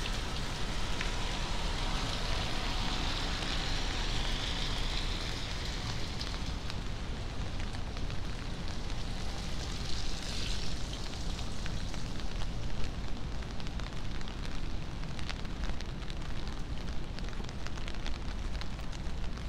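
Rain and a wet city street: a steady rushing hiss over a low rumble, swelling twice (a few seconds in and about ten seconds in), with scattered small ticks like drops in the second half.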